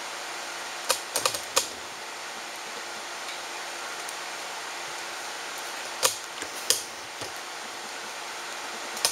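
A few sharp clicks and taps, a cluster of four about a second in and a couple more past the middle, over a steady hiss.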